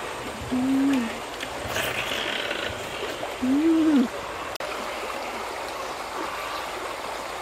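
Dogs eating from a wicker basket, with two short, low, pitched vocal sounds from a dog, about half a second in and again about three and a half seconds in, over a steady hiss.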